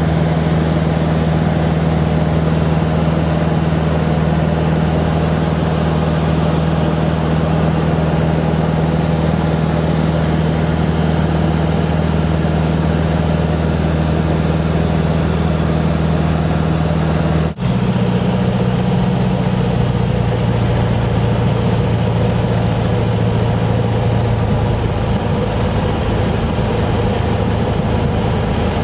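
Van's RV-8 light aircraft's piston engine and propeller droning steadily in flight. About two-thirds of the way through, the sound cuts out for an instant and returns with a lower, rougher engine note on the landing approach.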